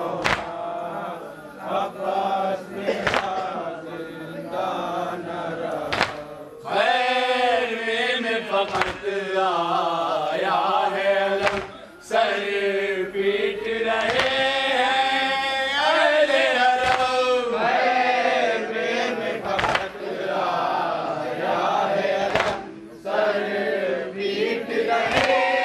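Men chanting a nauha, a Shia lament: one lead voice at a microphone with others joining, the notes gliding and held. Sharp slaps of matam, hands beating on chests, cut in every second or few.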